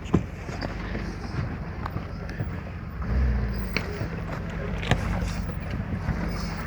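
Land Rover 4x4 engine running under load while crawling over rocks, revving up about three seconds in, with a few sharp knocks and clunks as the vehicle works over the stones.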